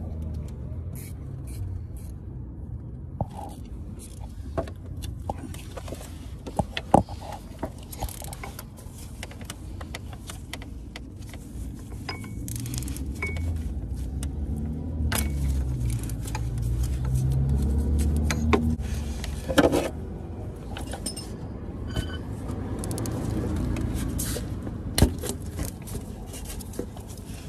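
Metal hand tools clinking, knocking and scraping on car engine parts, over a low vehicle rumble that swells twice.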